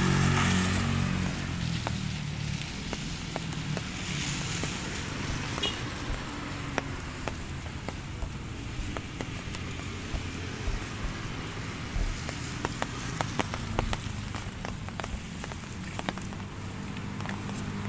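Light drizzle: a soft hiss of rain with scattered, irregular raindrop taps, thickest a little past the middle. A motor vehicle's engine runs at the start, fading within the first second or so, and is faintly back near the end.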